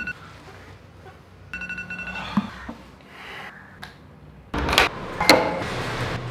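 Smartphone alarm sounding in short bursts of high, steady beeping tones, once at the start and again about a second and a half in, then stopping. Near the end, louder noise with a couple of sharp knocks begins.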